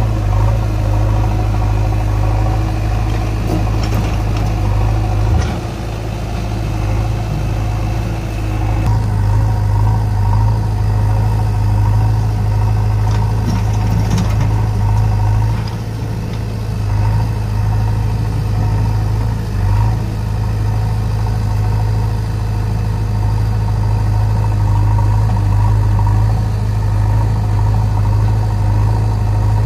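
Diesel engines of a JCB backhoe loader and a Swaraj 744 FE tractor running side by side, a steady drone with the backhoe engine working under load as it loads soil into the tractor's trolley, dipping briefly a few times.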